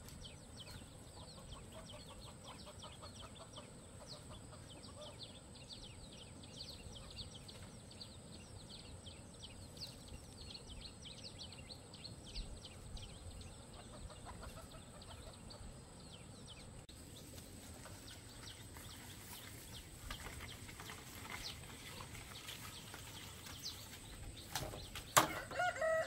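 Chickens, faint: a steady stream of short high peeps with some clucking, and a few sharp knocks near the end.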